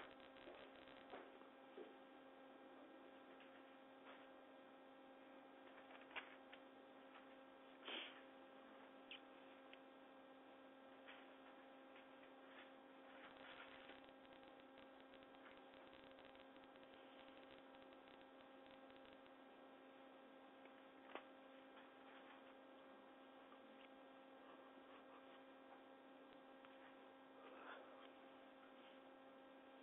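Near silence: a steady electrical hum of a few even tones, with a few faint clicks and knocks, the loudest about eight seconds in.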